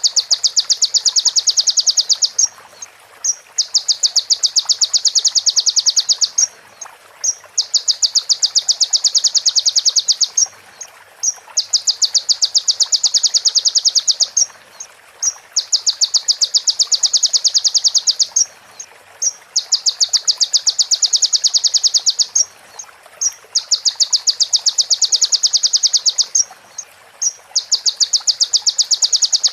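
A female prinia (prenjak betina) giving its rapid clicking rattle in phrases of two to three seconds, each followed by a pause of about a second, eight times over. A faint steady hiss lies underneath.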